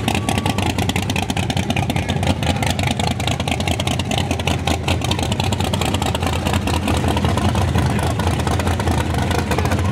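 Chevrolet Monte Carlo drag car's race engine, exposed through the hood, idling loudly with a rapid, uneven rumble.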